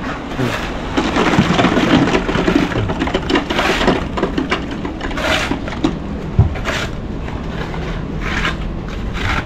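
Wet concrete mix being worked and poured for a column, with gritty scraping and crunching strokes about every one and a half seconds over a steady low rumble.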